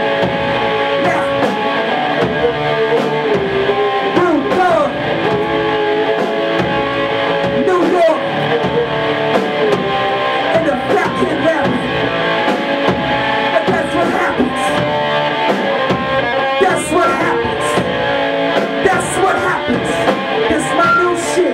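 Rap-rock band playing live and loud: electric guitar and a drum kit with regular cymbal hits, with a vocalist rapping into a microphone over them.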